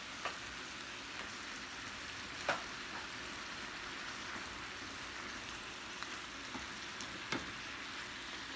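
Chicken pieces and sliced vegetables sizzling steadily in a hot skillet, with a few sharp clicks from the tongs as chicken is set into the pan, the loudest about two and a half seconds in and another about seven seconds in.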